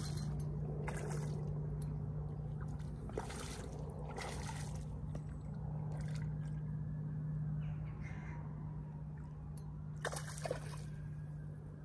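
Crows cawing several times in short, harsh calls spaced irregularly, over a steady low hum.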